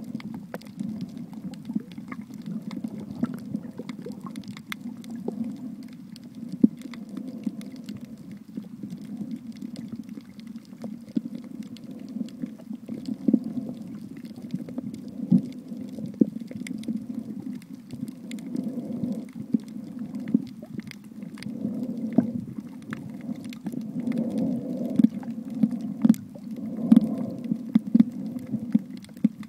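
Underwater sound picked up by a camera in its housing over a coral reef: a steady muffled low rumble of moving water, with many sharp clicks and crackles scattered through it.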